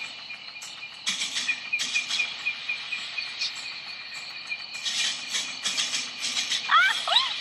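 Night insect chorus: a steady, rapidly pulsing cricket-like chirping. Several short bursts of rustling come through it, and a few quick sliding high notes sound near the end.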